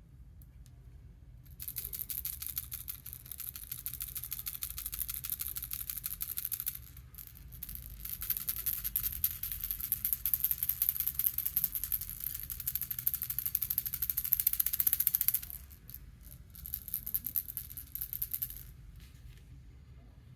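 Baby rattle toy shaken fast, its contents clattering in a dense, rapid rattle. It comes in three spells: a long one starting about a second and a half in, a brief pause, a longer one, then a short final shake before it stops near the end.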